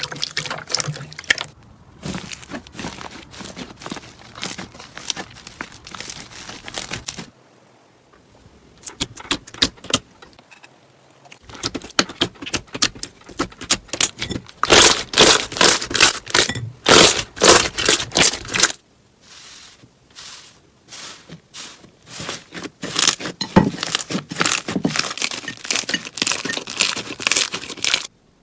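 Slime being squeezed, pressed and pulled by hand, giving rapid crackling and popping clicks. The texture changes abruptly a few times, with the densest, loudest crackling in the middle.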